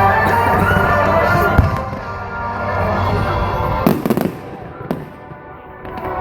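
Fireworks going off over loud music: a sharp bang a second and a half in, then a burst of crackles around four seconds and a single pop about a second later.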